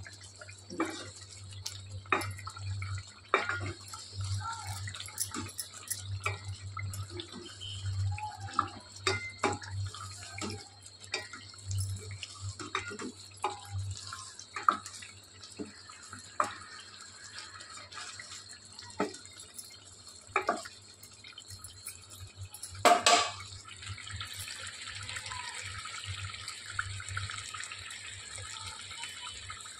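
Wooden spatula stirring and knocking against an aluminium pot of bubbling brinjal curry, with many short knocks and bubble pops over a steady low hum. About 23 s in there is one loud clatter, then a steady bubbling hiss of the simmering gravy.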